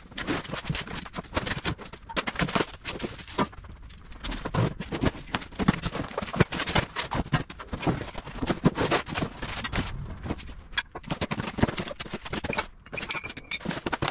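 Unpacking a snow plow kit by hand: cardboard and styrofoam packing rustling and scraping, with irregular knocks and clatter as steel parts are set down on a concrete floor. A brief squeak near the end.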